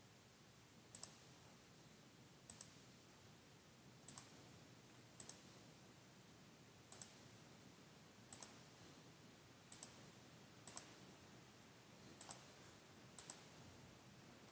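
Sharp, high double clicks, about ten of them, repeating at uneven intervals of roughly one to two seconds over a faint steady background.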